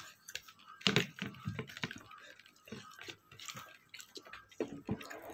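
Eating by hand: fingers mixing and squeezing rice against a plate, with chewing and mouth smacks, heard as irregular short clicks.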